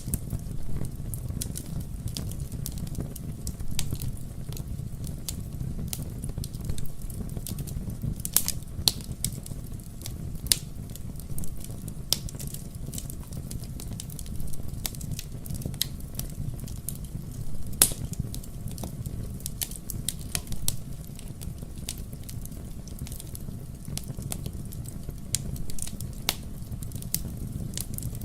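Wood fire burning in a fireplace: a steady low rumble of the flames with irregular sharp crackles and pops from the burning logs, a few louder pops scattered through.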